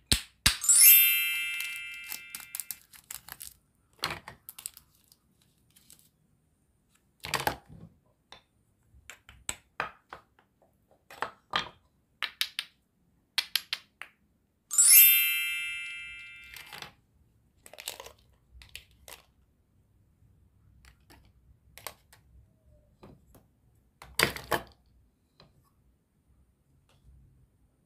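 Plastic toy food and toy kitchen pieces clicking and tapping as they are handled, pulled apart and set down. Twice, about a second in and again about 15 s in, a bright ringing chime sounds and fades over about two seconds.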